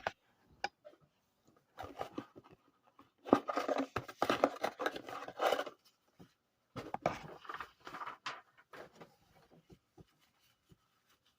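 Irregular rustling and scraping with light clicks and taps: hands handling a sealed trading card box and its wrapping, in two busier spells separated by a short pause.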